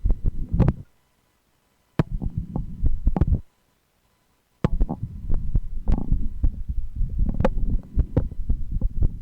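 A woman's heartbeat heard through a stethoscope: steady low thumps overlaid with many sharp crackles and scrapes. The sound cuts out to dead silence twice, about a second in and again around three and a half seconds in, for about a second each time.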